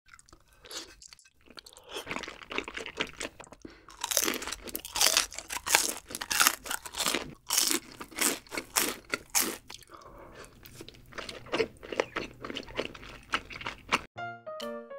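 Close-miked eating: crisp crunching and chewing of fried chicken feet and rosé tteokbokki, in quick dense bites. About a second before the end the eating stops and soft piano music begins.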